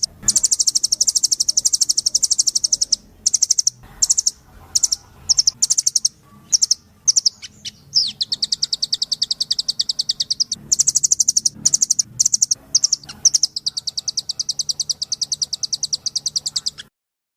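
Velvet-fronted nuthatch (rambatan doraemon) calling: fast, high, chattering trills of rapidly repeated notes in runs of a couple of seconds, broken by a stretch of shorter separate notes in the middle. The sound stops shortly before the end.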